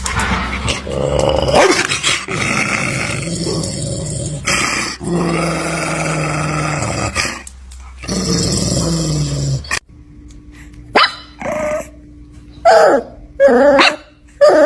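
Dog growling in long low rumbles for about ten seconds, then, after an abrupt cut, five short, higher-pitched barks spaced out through the rest.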